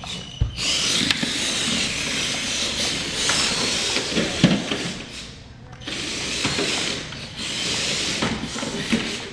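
Small electric motors of Air Hogs Hyper Tracks remote-control tracked toy vehicles whirring as they drive over a hardwood floor, stopping briefly about five and a half seconds in, with a couple of low knocks.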